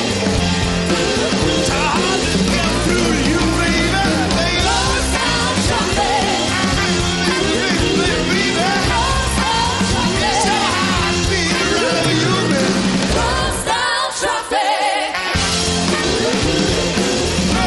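Live rock band playing, with a man and a woman singing together over bass guitar and drums. About fourteen seconds in the band stops for a second or so while the voices carry on, then comes back in.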